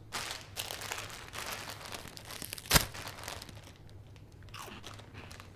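Crinkly packaging being handled, rustling and crinkling, with one sharp click or knock near the middle.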